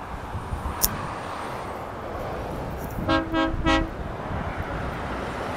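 Horn of an approaching articulated lorry giving three short toots about three seconds in, over steady road and engine noise. A single sharp click comes near the start.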